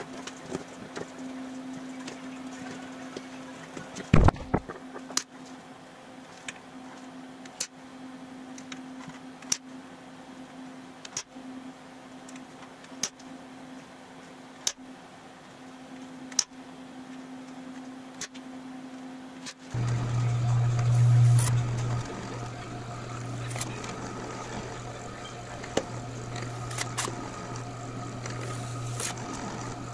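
Hand snips cutting aluminium sheet in a slow run of crisp snips, about one every second and a half, over a steady low hum, with one loud knock about four seconds in. About two-thirds of the way through, the sound cuts to a drill press motor running with a steady hum as it drills holes through the aluminium sheet.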